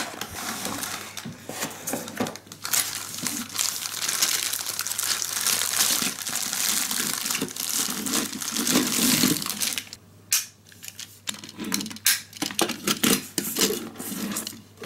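Plastic packaging crinkling and rustling as a Plarail 500 Series Shinkansen toy train is taken out of its bag and box. After about ten seconds this gives way to scattered light plastic clicks and knocks as the toy cars are handled and joined together.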